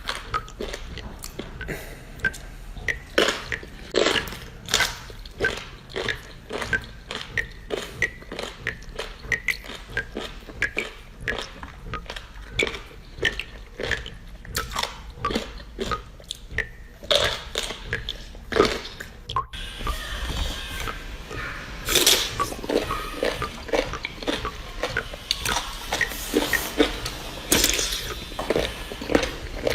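Close-miked eating: a person chewing and biting food, with many short irregular crunches and mouth clicks.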